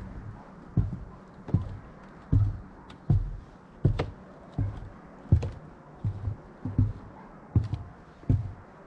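Footsteps of a person walking at an even pace, a dull low thud for each step, about eleven steps in a row.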